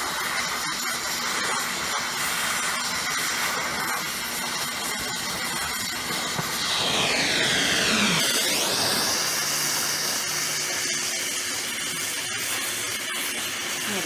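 Oxyhydrogen brazing torch, its gas bubbled through acetone, hissing steadily while brazing a copper boiler coil. About halfway through the hiss swishes down and back up in pitch and grows a little louder for a couple of seconds.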